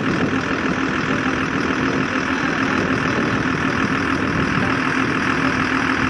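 Steady engine and road noise of a moving vehicle, with a constant low hum.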